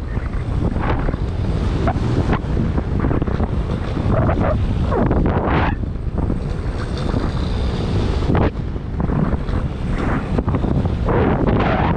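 Paramotor in flight: wind buffeting the microphone in repeated gusts over a steady low drone of the engine and propeller.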